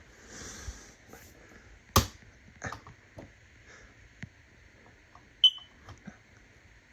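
A few scattered clicks and knocks, the loudest about two seconds in, and one brief high-pitched chirp about five and a half seconds in.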